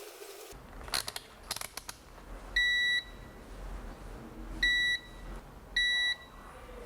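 Victor VC890C+ digital multimeter's continuity buzzer giving three short, steady high beeps, each about half a second long, as the probes find a connection between pins of the XLR cable being tested. Several light clicks come just before the first beep.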